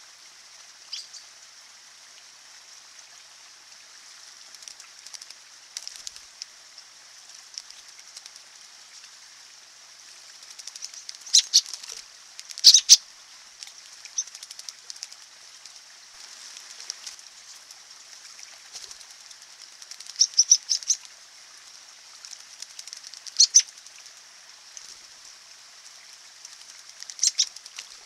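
American robins bathing in a shallow rocky stream: several short bursts of wing-flapping and splashing, the loudest near the middle, over the steady trickle of running water.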